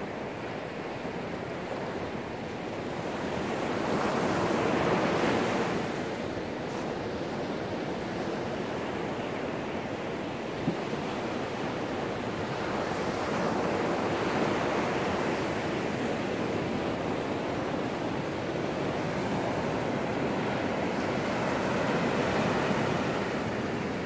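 Ocean surf breaking and washing up a sandy beach: a continuous rush that swells three times, about five, fourteen and twenty-two seconds in, and ebbs in between. A single brief click comes about eleven seconds in.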